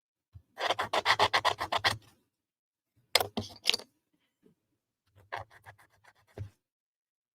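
Hand-sanding the leftover nubs off the edge of a wooden puzzle piece: quick back-and-forth rasping strokes in three short runs, about seven a second, the last run quieter.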